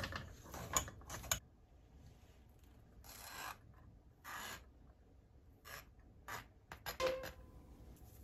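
Metal spoon pressing boiled potatoes through a wire-mesh sieve and scraping the purée off its underside into a stainless steel pot: faint rasping scrapes of metal on mesh. A quick run of strokes comes first, then a few scattered scrapes with pauses between.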